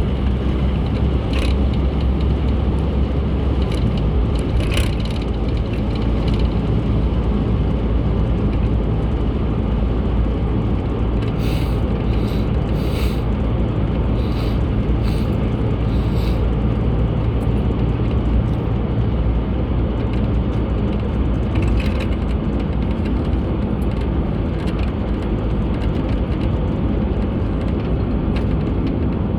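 Car driving at steady speed: a constant low engine and road rumble, with scattered short clicks and ticks, several close together about halfway through.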